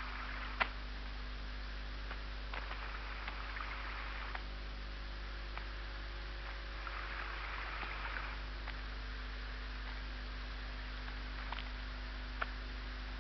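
Old film soundtrack noise: a steady low hum and hiss with scattered clicks and pops, and a few short patches of rustling noise.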